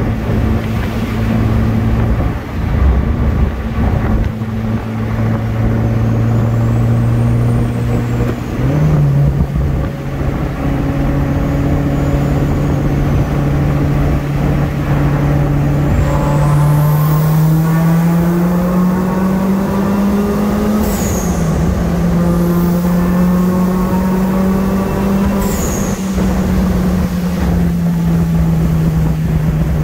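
Turbocharged NB Mazda Miata's built 1.8-litre BP four-cylinder (Garrett GTX2867R turbo), heard from inside the cabin. The engine cruises at steady revs, steps up in pitch at a downshift about a third of the way in, then pulls under boost with a climbing note and a faint high turbo whistle over it. It drops at a quick upshift about two-thirds of the way in, then holds high before easing down near the end.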